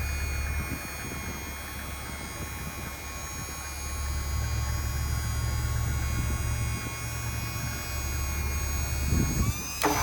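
Electric-over-hydraulic service crane running, a steady low hum with a steady whine over it as the boom is worked. The sound shifts suddenly just before the end.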